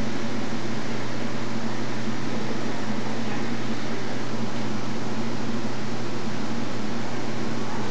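Steady background hiss with a constant low hum, even throughout with no distinct sounds standing out.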